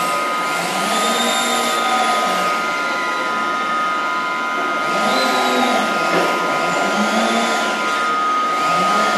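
Cargo-handling machinery running in a ship's steel cargo hold. It makes a steady drone that revs up and back down four times, over a constant high whine.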